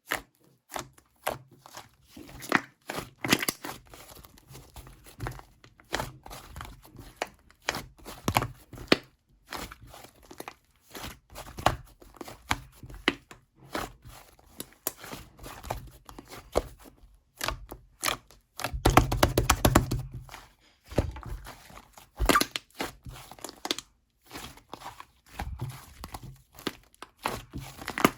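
Hands pressing and stretching slime, making rapid sticky clicks, pops and crinkly crackles, with a denser, louder run of crackling about two-thirds of the way through.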